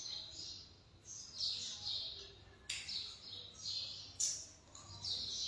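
Faint bird chirping: short high calls come and go, in groups, with a couple of sharp clicks in between.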